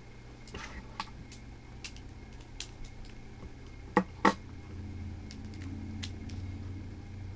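Small hard clicks of Beyblade parts being handled and fitted together, then two sharp knocks in quick succession about four seconds in as the assembled top is set down on the wooden table.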